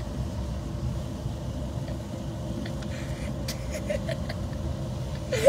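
Car driving on a wet road, heard from inside the cabin: a steady low rumble of engine and tyres. A short, loud sound comes just before the end.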